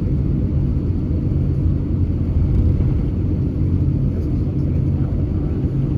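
Steady low rumble inside the cabin of an Airbus A350-900 during the taxi before takeoff, its Rolls-Royce Trent XWB engines at low taxi power.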